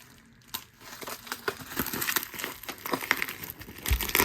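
Packaging being crinkled and torn open by hand: irregular crackling that starts about half a second in and grows busier, with a dull knock near the end.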